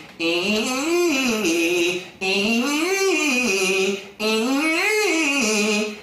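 A man singing a vocal-exercise scale on the closed 'ee' vowel. He sings three quick runs, each rising in pitch and coming back down, about two seconds apart with short gaps between.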